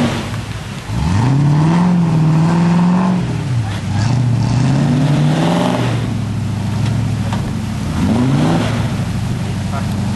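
Off-road 4x4's engine revving hard in four throttle bursts, each rising sharply in pitch, held, then dropping, as it climbs a steep muddy slope under load.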